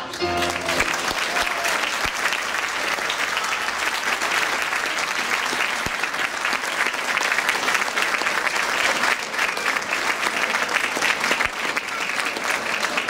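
An audience applauding steadily at the close of a choir's song, the last sung notes dying away in the first second.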